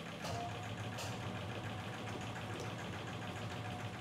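Frozen-dessert freezer machine running with a steady low hum and a faint high whine while its freezer cylinders are drained through the dispensing spigots.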